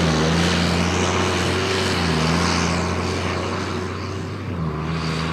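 Sonalika tractor's diesel engine running at a steady speed.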